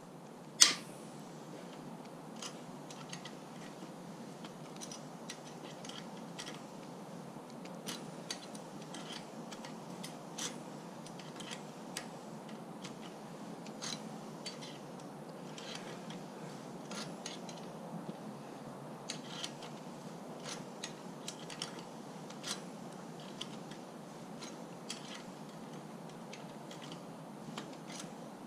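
Light metallic clicks and taps of an Allen key and bicycle parts as a rear derailleur is bolted onto a steel frame, scattered irregularly, with one sharp, much louder click just under a second in.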